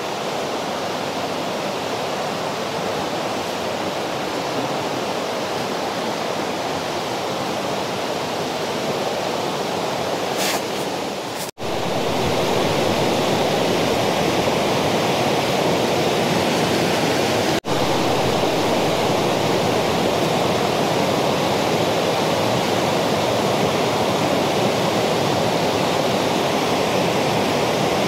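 Fast-flowing river water rushing over rocks: a steady, loud rush that cuts out for an instant twice, about a third of the way in and again past halfway, and comes back a little louder after the first break.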